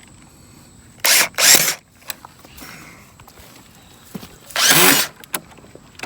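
Power drill driving screws to fasten a dock bracket: two quick bursts about a second in, then a longer one around four and a half seconds.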